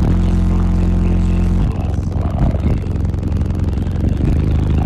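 Twelve Sundown SA 15-inch car subwoofers playing bass-heavy music at very high level, heard from inside the vehicle. Deep bass dominates: one held note for about the first second and a half, then the bass line changes.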